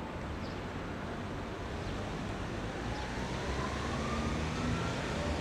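Outdoor ambience of a steady low rumble of vehicle traffic, with a faint rising whine from a passing vehicle about halfway through.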